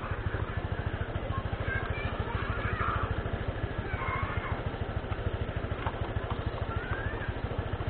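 Honda scooter's single-cylinder four-stroke engine idling with a fast, even beat.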